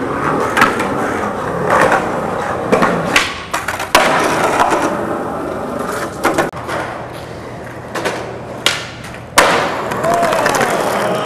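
Skateboard wheels rolling on concrete, broken by a string of sharp tail pops and cracking board landings a second or two apart, the loudest crack near the end.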